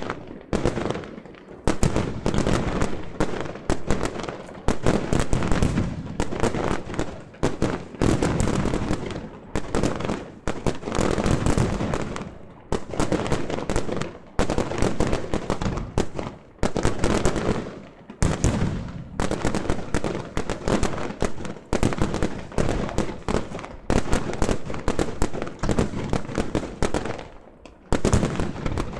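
Fireworks display: a dense, continuous barrage of bangs and crackling that comes in waves, easing briefly every few seconds before building again.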